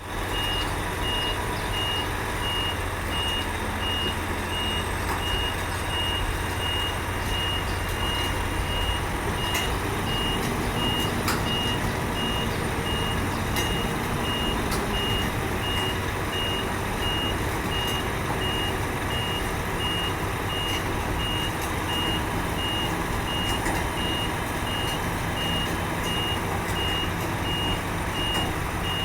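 Heavy diesel machinery running steadily while a high-pitched reversing-type warning beeper repeats at an even rate throughout, as a roll-on roll-off skip truck pulls a mini excavator up onto its bed.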